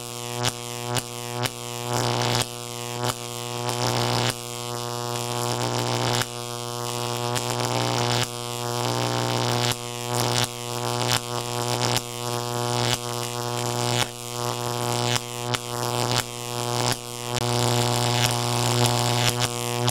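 Electric-charge sound effect: a steady, low electrical hum and buzz, broken by crackling zaps and surges that build and snap off about once or twice a second.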